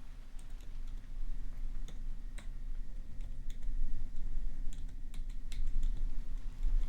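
Typing on a computer keyboard: irregular keystroke clicks, coming in a quicker flurry about two-thirds of the way through, over a steady background of rain.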